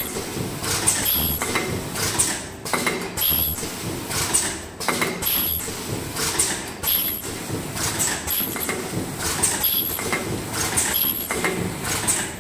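Automatic mask ear-loop welding machine with its folding and counting conveyor running: repeated mechanical knocks and short high hisses, roughly once a second, over a steady machine noise.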